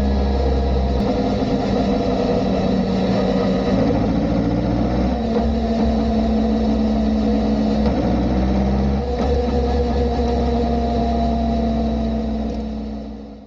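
Kawasaki ZR-7S air-cooled inline-four motorcycle engine running, its note shifting several times, around four, five, eight and nine seconds in, and fading out at the end.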